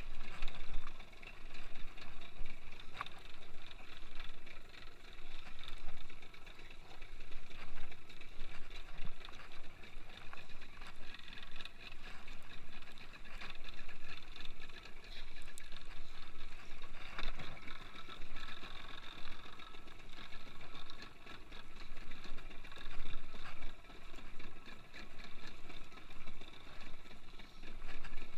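Fishing boat's engine running steadily, with a rising and falling rush of wind and water over it.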